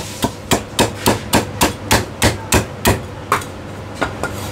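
Chinese cleaver chopping crispy roast pork belly on a wooden chopping block: a quick, even run of sharp chops, about three a second, thinning out after about three seconds.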